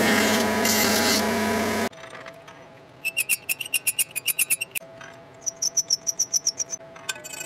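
Powermatic belt grinder grinding the edge of a metal plate pattern, loud and steady, stopping abruptly about two seconds in. Then a hand file rasps rapid strokes, about four to five a second, along the pattern held in a vise. The strokes come in two runs, each stroke with a high ringing squeal from the plate; the second run is higher-pitched.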